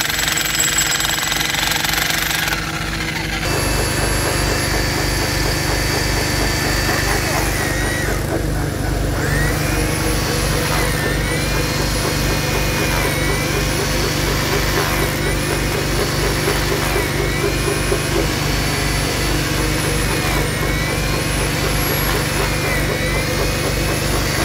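An engine running steadily at a constant speed, louder from about three seconds in, with a faint whine that rises and falls about every two seconds.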